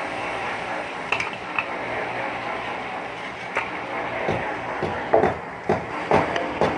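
Building work on a wall: irregular knocks and metallic clinks of tools on brick and metal, a handful of scattered strikes, more frequent in the second half, over a steady background noise.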